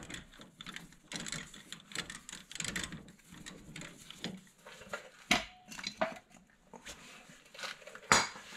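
Light metallic clicks and clinks from a hand tool turning the new inner tie rod on the steering rack, with a few sharper clicks in the second half.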